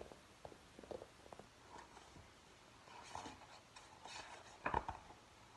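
Quiet rustling and handling of a picture book's paper pages as a page is turned, with a few small clicks and a louder rustle near the end.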